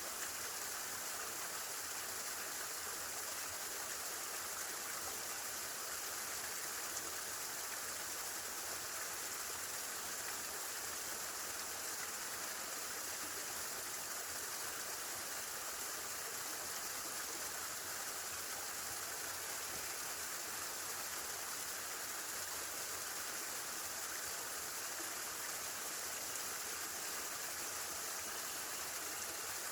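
Running water of a stream: a steady, even rush that does not change.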